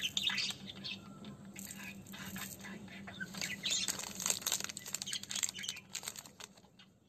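Crinkling and crackling of a chocolate bar's metallised plastic wrapper (Cadbury Dairy Milk Silk Bubbly) as it is handled and turned in the hands, many small crackles close together, with birds chirping faintly in the background.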